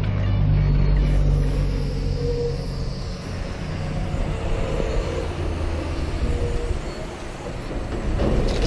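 Aerosol spray paint can hissing as paint is sprayed onto a corrugated metal gate, over a steady low rumble of road traffic.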